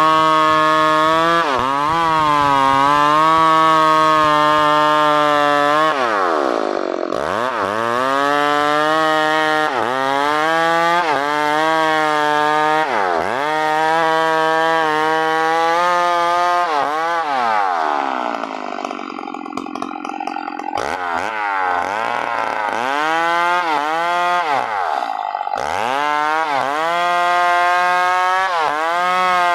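New West PRO 888 two-stroke chainsaw running at high revs through wood. Its engine note sags as the chain bites and climbs back every few seconds, and it drops to a lower speed for a few seconds around the middle.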